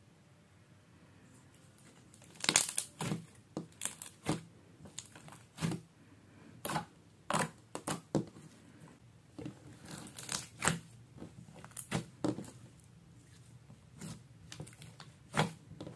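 Bubbly clear slime being poked and pressed by fingers on a tabletop, giving sharp, irregular pops and crackles as the air bubbles inside it are squeezed. The pops start about two and a half seconds in.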